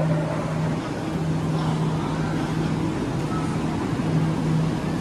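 Railway platform ambience: a steady rush of noise with a low hum that comes and goes, beside a standing passenger train.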